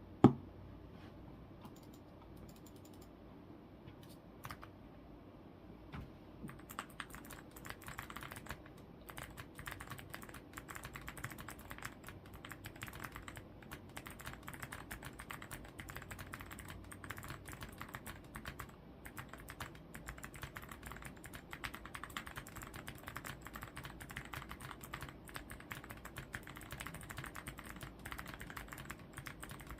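Mechanical keyboard with Gateron Melodic clicky switches, MDA keycaps and a foam-filled Killer65 case being typed on. A single loud thump comes right at the start, then a few scattered keystrokes, and from about six seconds in steady, fast typing.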